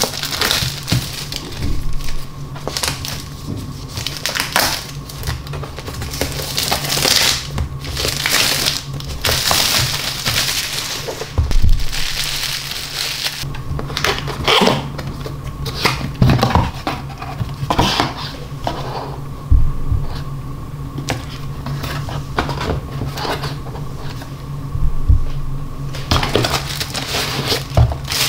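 Plastic shrink wrap crinkling and tearing as a cardboard product box is unwrapped by hand, followed by the box lid and flaps being opened and a plastic-bagged speaker being handled. The sound comes as irregular crackling rustles and handling clicks over a steady low hum.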